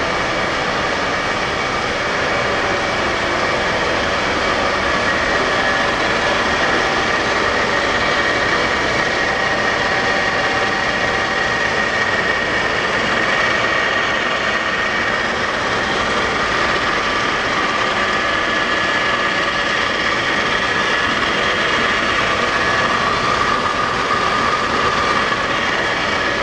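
Summit 24" x 120" engine lathe running under power: a steady mechanical whine and hum from the headstock and spindle, with no change in speed.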